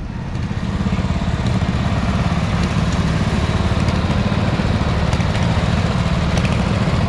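Small engines of vintage garden tractors and ATVs running as they drive slowly past, a steady low drone that grows louder about a second in.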